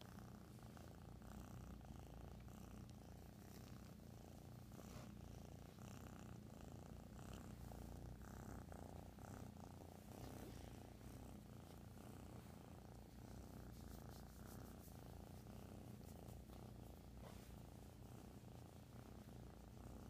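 Young kitten purring steadily close up: a continuous low rumble, a 'motorboat' purr.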